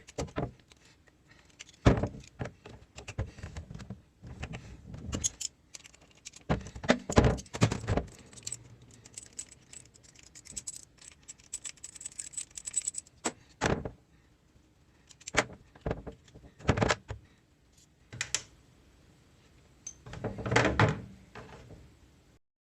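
Metal tools and parts clinking and knocking in separate knocks and short rattles, with quiet gaps between.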